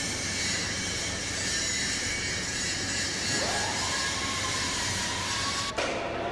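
Steady industrial machinery noise, a loud hiss and rumble, with a tone that rises about halfway through and then holds. Near the end it cuts off abruptly to a different steady hum.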